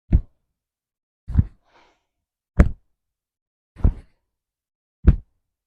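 Hands patting against the body as loosely swung arms tap the belly, lower back and shoulders in a twisting Qi Gong tapping exercise. There are five soft thumps, evenly spaced about every second and a quarter.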